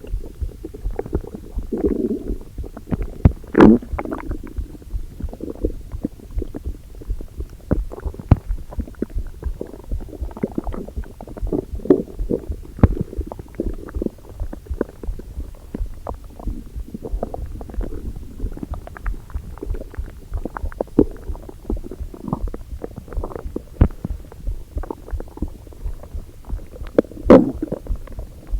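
Hungry, empty stomach rumbling and gurgling, with a constant run of short pops and clicks. Louder gurgles come about two and four seconds in and again near the end.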